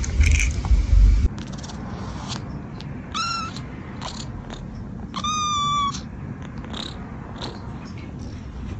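Domestic cat meowing twice: a short high call about three seconds in, then a longer, steadier one about two seconds later. A low rumble is loudest in the first second or so, before the calls.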